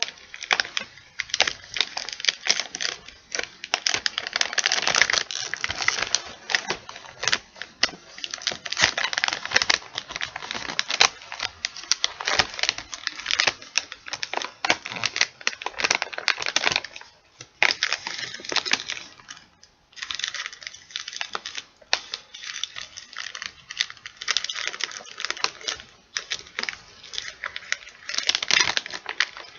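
A chip bag crinkled and handled with the fingertips for ASMR: a dense, irregular run of rapid crackles, with a few brief pauses.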